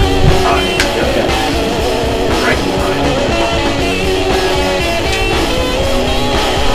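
Background rock music led by guitars, with held, ringing notes and a steady pulse.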